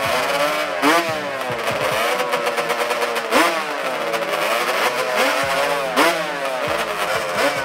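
A racing quad or dirt-bike engine revved in repeated blips. Each rev rises sharply in pitch and then falls back, several times over.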